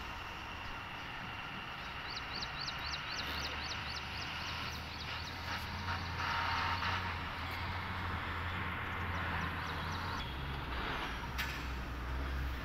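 Steady background rumble and hiss like distant traffic. A run of quick, high chirps, about four a second, starts about two seconds in and lasts some three seconds. There is one sharp click near the end.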